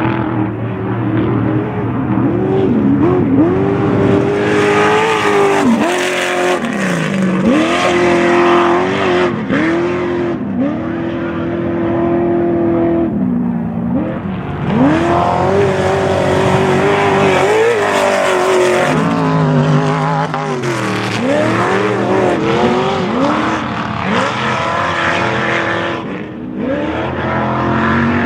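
Class 1 off-road racing buggy's engine running hard under racing throttle, its pitch climbing and dropping again and again. A rushing hiss comes in twice along with it.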